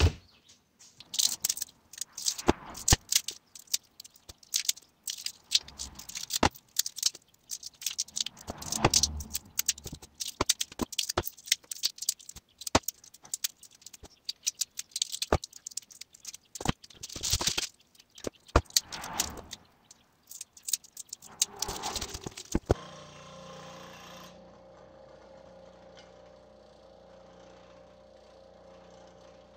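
Small tools and parts clicking and rattling in rapid, irregular handling on a workbench, with some scraping. About three quarters of the way through this stops abruptly and gives way to a faint steady hum.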